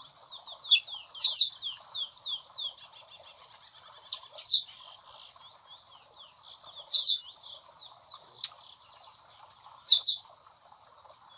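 A group of chestnut-bellied seed finches (curiós), brown females and young, calling with quick runs of short, falling chirps. A fast rattle comes about 3 seconds in, and several sharper, louder calls come through at intervals. A faint steady high whine sits underneath.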